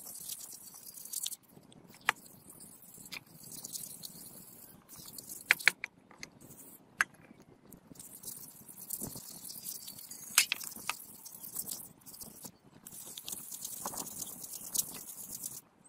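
Hand sanding the steel face of a hatchet head with a mesh sanding disc: a scratchy hiss in stretches of a few seconds as the disc is rubbed back and forth, with short pauses and a few sharp clicks.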